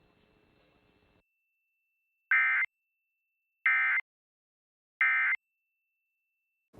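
Emergency Alert System end-of-message data signal: three short, identical bursts of SAME digital data tones, about a second and a half apart, marking the end of the alert.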